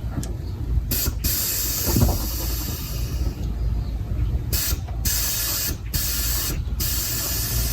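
Air hissing out in several spurts, cutting off sharply between them, as the car is let down: a long hiss, then three shorter ones.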